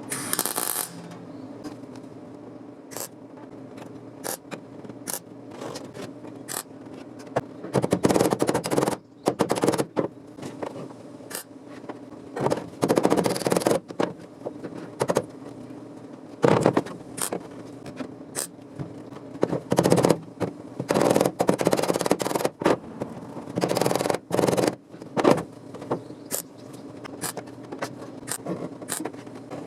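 Hand tools working the sheet-steel floor panel of a car body: bursts of scraping a second or two long, several times, among many sharp clicks, over a steady low hum.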